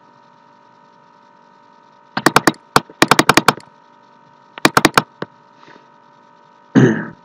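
Computer keyboard keystrokes in quick runs of several clicks each, as numbers are typed into a calculator, over a faint steady electrical hum. Near the end there is a brief vocal sound.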